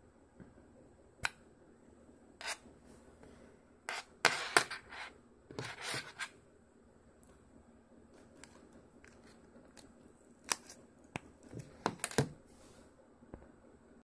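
Handling noise from a USB-C audio and charging adapter being plugged into a smartphone's port and moved about on a hard surface: scattered sharp clicks and short scrapes, loudest in a cluster about four to six seconds in and again near the end.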